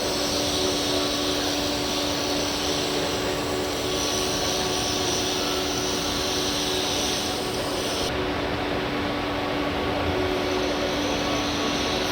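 Modernized Morara grinding machine running steadily: an even machine hum with a few steady tones under a broad hiss. The highest part of the hiss drops away about eight seconds in.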